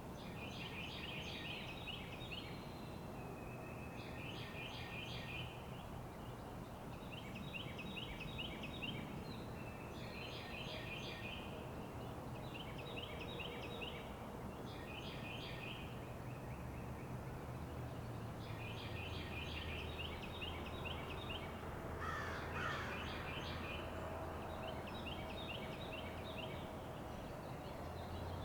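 A songbird sings a short, fast trilled phrase of rapidly repeated high notes, again and again every two to three seconds. Under it runs a steady low rumble of highway traffic.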